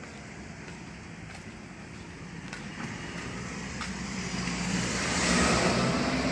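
A road vehicle driving past: engine and tyre noise grows louder, peaks about five seconds in, and starts to fade.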